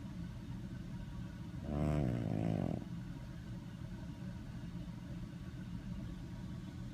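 A sleeping animal snoring: one drawn-out snore about two seconds in, over a steady low rumble.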